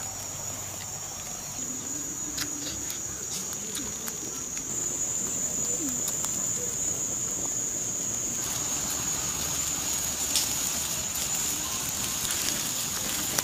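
Steady high-pitched drone of insects, with a few scattered clicks in the first few seconds.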